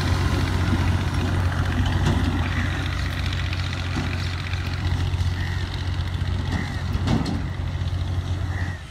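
Steady low engine rumble from a vehicle running out of sight, with a few faint short chirps over it; it cuts off suddenly at the end.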